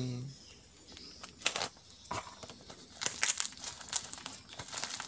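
Plastic packaging crinkling and rustling in irregular bursts as hands open a small mailed parcel, with the sharpest crackle about a second and a half in and a cluster of them near the end.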